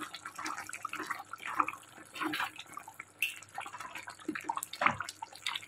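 Thick chicken gravy simmering in a pan, bubbles popping irregularly with soft wet blips.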